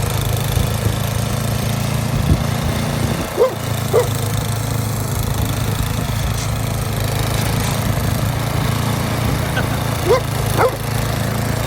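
A dog gives four short barks in two pairs, one pair a few seconds in and the other near the end, over a steady low mechanical hum.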